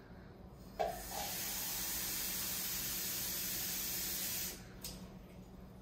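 Kitchen faucet running water into a plastic cup: a steady hiss of water that comes on suddenly about a second in and is shut off about three and a half seconds later, with a short click just after.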